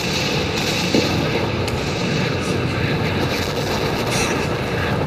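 Storm-at-sea sound effect played over loudspeakers in a large hall: a steady rumbling noise of wind and waves.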